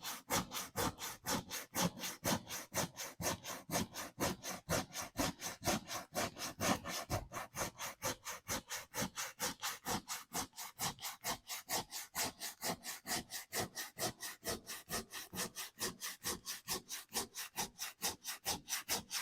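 Sandpaper rubbed back and forth by hand on a wooden door, in quick, even strokes of about four or five a second.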